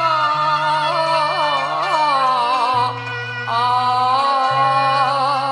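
Cantonese opera song music: a long, wavering melodic line with vibrato over held low bass notes, with a short break about three seconds in.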